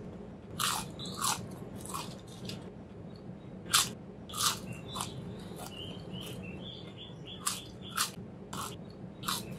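Potato chips being bitten and chewed close to the microphone: a series of about a dozen sharp, crisp crunches at irregular intervals, the loudest a little under four seconds in.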